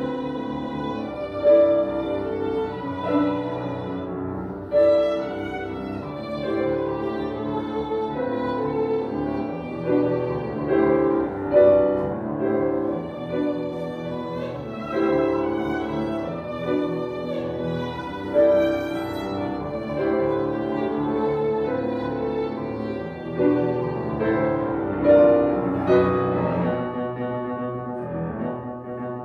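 Violin and grand piano playing a classical duo: the violin carries a bowed melody over the piano's chords, swelling in loudness from phrase to phrase.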